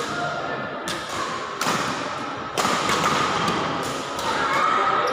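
Badminton racket strikes on a shuttlecock during a rally: several sharp hits, the first three about a second apart, echoing in a large sports hall over a steady background din.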